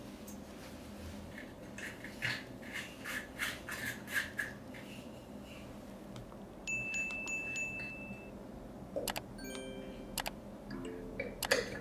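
Faint clicking as brass oil-lamp parts are handled. About seven seconds in comes a single bright ringing ding. From about nine seconds there are several sharp clicks with short chiming notes, the sound effects of a like-and-subscribe button animation.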